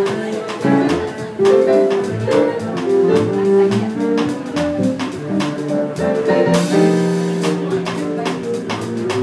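Instrumental music with a jazz feel: a melody of distinct notes over regular drum hits, with a brief crash about six and a half seconds in.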